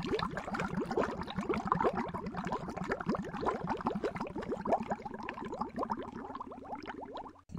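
Water bubbling, a dense, continuous stream of small bubbles making many quick rising blips, with a brief break near the end.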